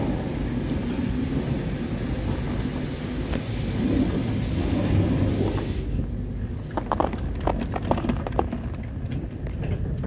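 Detachable chairlift terminal machinery running: a steady rumble and hiss as the chair rolls through the Doppelmayr terminal. The hiss cuts off suddenly about six seconds in as the chair leaves the terminal, leaving a low rumble with a few light clicks and rattles.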